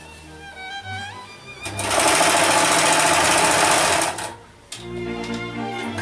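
A Brother domestic sewing machine running at speed for about two seconds, sewing through tulle, then stopping. Background music with held notes plays before and after it.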